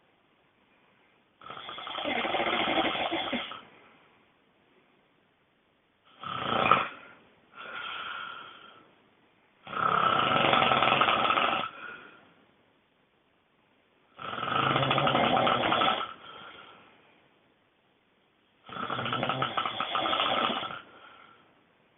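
A person snoring, extremely loudly: about six snores in turn, each lasting one to two seconds, with quiet gaps of a few seconds between them. A short, sharp snore about six and a half seconds in is the loudest, followed closely by a weaker one.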